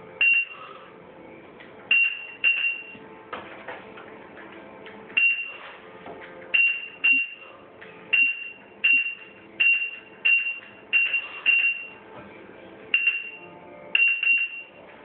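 Proliner 3D digitizer beeping: about fifteen short, high beeps at irregular intervals, some in quick pairs and a run of about one a second in the middle, each marking a point taken with its wire probe.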